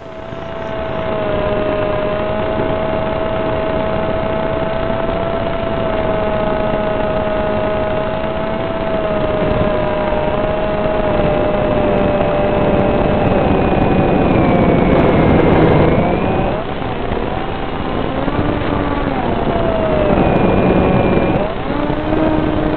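Brushless outrunner motor (2216, 2000 kV) spinning a 6045 propeller on the flying wing, heard through its onboard FPV camera's microphone: a steady motor whine over wind rush. In the last third the pitch wavers up and down and dips as the throttle changes.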